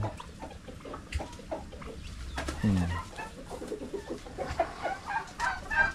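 Chickens clucking now and then, with scattered short clicks and knocks.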